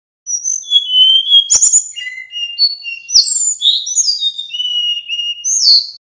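Male sikatan bambu flycatcher singing a fast, varied song of clear whistled notes and quick down-slurred phrases. A few sharp clicks sound about one and a half seconds in and again about three seconds in.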